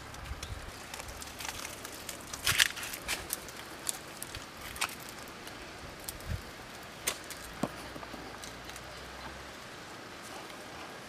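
Dry vines and twigs being handled, giving scattered faint clicks and crackles over a quiet background, with one louder cluster about two and a half seconds in.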